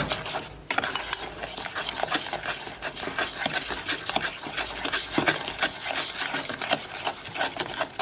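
Thick strawberry syrup boiling in an aluminium pot, its bubbles popping in a rapid, irregular crackle while a spatula stirs and scrapes the pan; the crackle starts a little under a second in. The popping shows the syrup has thickened and is ready.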